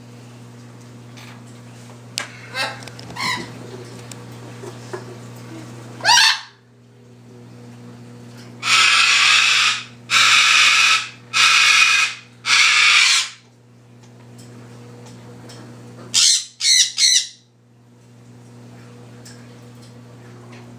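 Cockatoo screeching loudly: a few short squawks, then four long screeches in a row about halfway through, then three quick squawks near the end, over a steady low hum.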